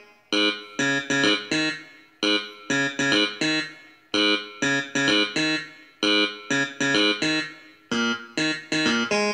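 Background music: a short phrase of about five sharp, bright notes that repeats roughly every two seconds.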